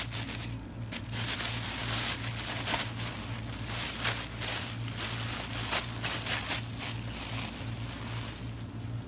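Thin plastic bag crinkling and rustling in irregular bursts as a plastic-wrapped package is handled and pulled open, over a steady low hum.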